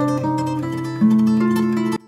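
Background music: a plucked-string melody over held bass notes, with a new note about every half second, cutting off abruptly at the end.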